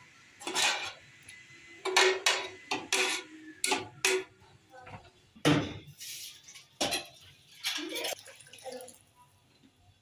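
A metal spoon and ladle clinking and scraping against a metal cooking pot and an oval roasting pan, with a dozen or so separate knocks in uneven succession.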